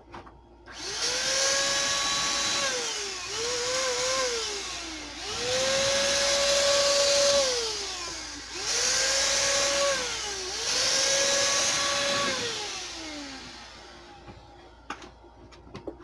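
Handheld electric paint sprayer running in five spells of two to three seconds while spraying black paint onto a sign. Each time the motor whine climbs, holds steady over a hiss of air and paint, then sinks as the motor winds down between passes. It falls quiet about two seconds before the end, leaving only a few faint clicks.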